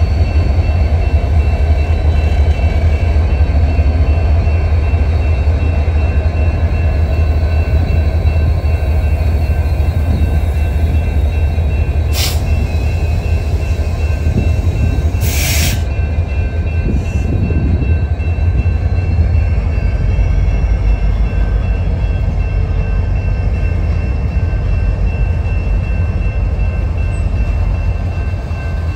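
Diesel-hauled freight train passing over a grade crossing. The trailing locomotives' engines run with a heavy steady rumble at first, then the freight cars roll by on the rails. Two short, sharp noises come about 12 and 15 seconds in.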